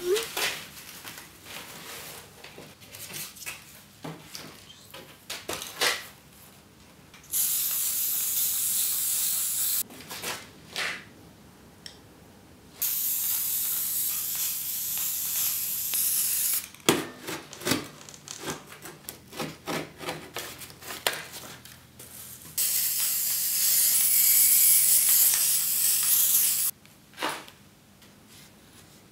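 Aerosol spray-paint can spraying in three long hisses of a few seconds each, with small knocks and rustles of handling in between.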